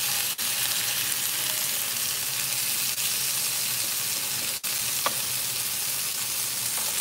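Beef short ribs sizzling as they sear in a hot pan: a steady frying hiss, with a single short knock about five seconds in.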